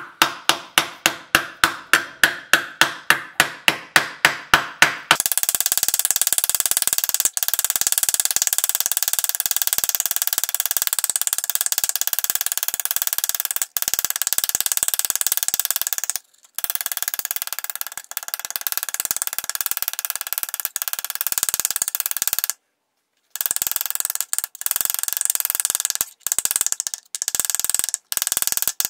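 Hammer planishing a thin sheet-steel ladle bowl over a ball hitch: ringing metallic taps about four a second, which after about five seconds are sped up into a dense continuous rattle of blows, with a few short breaks. The taps smooth out dents, knock off forge scale and work-harden the bowl.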